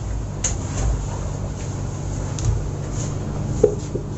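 Rubberwood bunk bed's ladder and frame giving a few light knocks and creaks as a man climbs up onto the top bunk, over a steady low hum.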